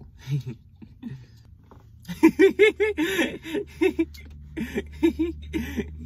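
A person laughing in a run of short, repeated bursts, starting about two seconds in, over a steady low hum.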